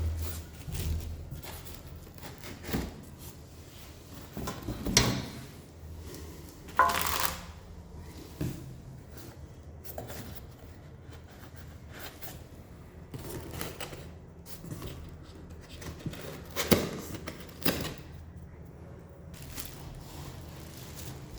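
Intermittent handling noises of unpacking: scattered knocks, clicks and rustles, the loudest about five, seven and seventeen seconds in, over a low steady hum.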